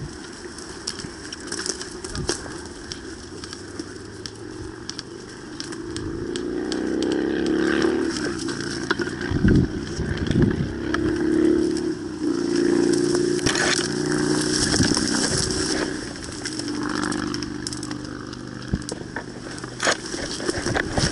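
A motor running, rising in pitch about a quarter of the way in and holding steady for about ten seconds before fading, with scattered clicks and crackling throughout.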